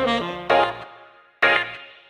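Background music: short chords that start sharply and fade, three times, with a brief gap before the last.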